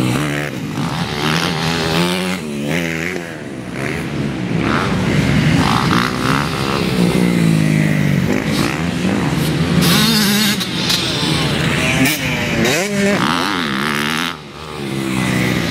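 Several motocross dirt bike engines racing past, each revving up and backing off so the pitch rises and falls over and over, the engines overlapping.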